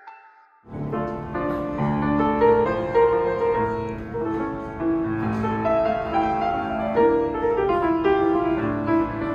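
Piano music playing slow held notes and chords, starting suddenly under a second in as a falling electronic tone from the previous music dies away.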